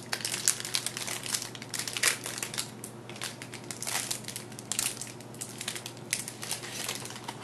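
Clear plastic wrapper crinkling and crackling in irregular bursts as it is worked off a stack of trading cards.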